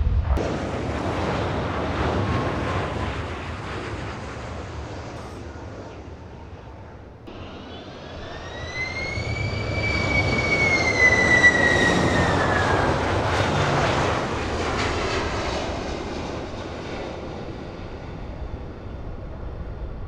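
Widebody jet engines: a broad roar that slowly fades, then after an abrupt change a Boeing 767 freighter on final approach passes close, its engine whine rising and then falling in pitch, loudest about halfway through, before the roar fades again.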